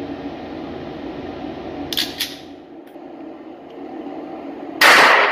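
Steady hum of the indoor range's ventilation, with two quick clicks about two seconds in. Near the end comes a single very loud gunshot that rings on in the range.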